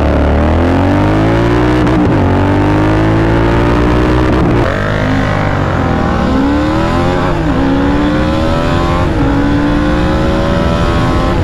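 Motorcycle engines at full throttle, accelerating hard in a drag race. The pitch climbs and drops back at each upshift, several times, over wind rush.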